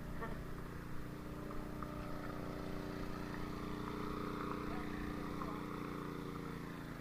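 Engine being tested, running steadily at an even speed with a constant hum and no revving.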